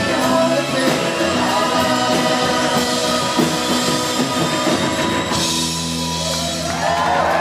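Live band playing with a singer, loud through a club PA; about five seconds in the cymbals drop out and a held chord rings on as the song closes. Near the end the crowd starts cheering and whooping.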